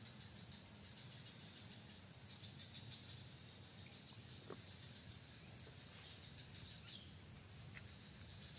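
Faint outdoor ambience of insects: a steady high-pitched drone with a flickering cricket-like chirring under it, a brief faint click about halfway through and a faint bird chirp near the end.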